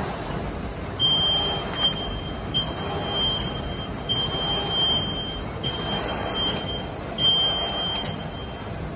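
A plastic apron sheet-making machine running, with a steady mechanical noise and a high, steady whine that sounds in stretches and restarts about every second and a half, keeping time with the machine's cycle.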